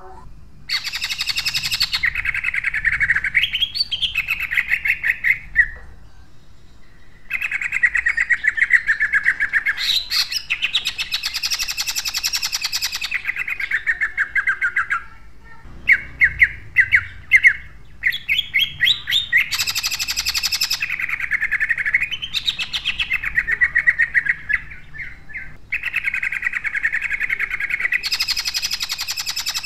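Caged male cucak ijo (greater green leafbird) singing loud, harsh, rapid-fire 'tembakan' phrases: long bouts of fast rattling notes several seconds each, broken by short pauses, with a run of separate sharp notes about halfway through.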